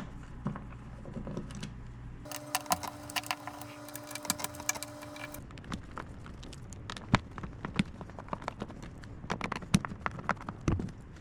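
A power screwdriver runs in one steady burst of about three seconds, backing out screws to get the part out. Around it are scattered sharp clicks and clinks of screws and parts being handled.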